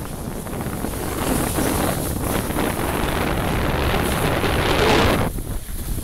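Wind rushing over the microphone of a moving skier, with skis hissing and scraping over soft spring snow. It gets louder as speed builds and dips briefly near the end before coming back.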